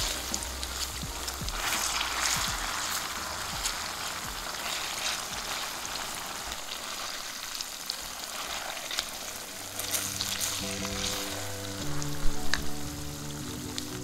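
Korean black bean paste frying in hot oil in a nonstick pan, a steady sizzle, with the light scrape and click of a silicone spatula stirring through it.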